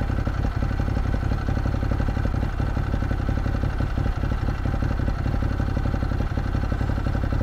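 Ducati Monster 821's L-twin engine idling steadily at a standstill, with an even, rapid pulse.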